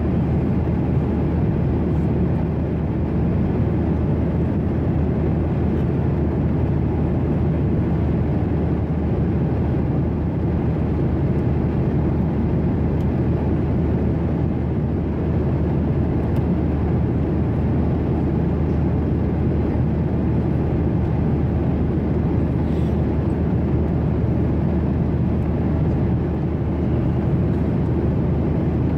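Steady, unchanging cabin noise inside a Boeing 737-800: the drone of its CFM56-7B engines heard through the fuselage, with a low hum underneath.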